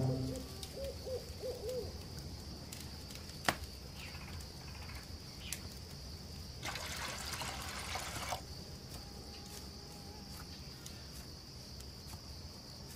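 Night-time outdoor ambience with a steady high-pitched insect drone and an owl hooting. About seven seconds in, water trickles through a sponge filter pad into a steel cup for about a second and a half. There is a light click a few seconds before that.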